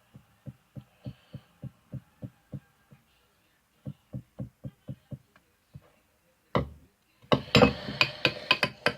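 Slime mixture being stirred in a bowl: soft low thuds about three a second in two runs, then from about seven seconds in a loud, rapid clatter of the utensil knocking against the bowl.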